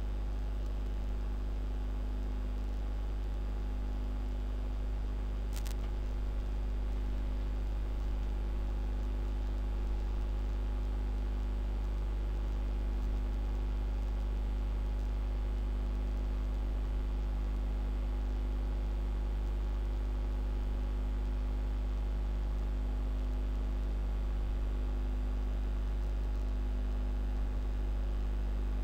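Steady low electrical mains hum with a light hiss, unchanging throughout, and one short click about five and a half seconds in.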